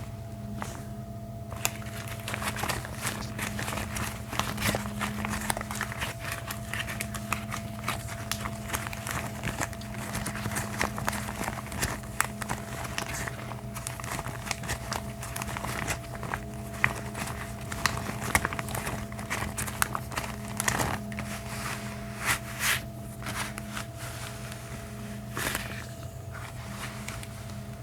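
Gloved hands rubbing and crinkling close to the microphone, a steady stream of crackly rustles with occasional sharper snaps, over a constant low electrical hum.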